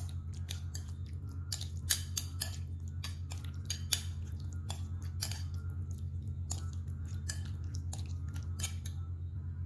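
Metal spoon clicking and scraping against a ceramic bowl as marinated raw pork pieces are stirred, in irregular taps that stop about nine seconds in. A steady low hum runs underneath.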